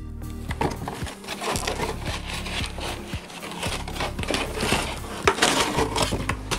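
White foam packing blocks and a cardboard box being handled as a chip-on-board LED grow light is lifted out, giving a continuous rustling, scraping and crinkling with short knocks and clicks.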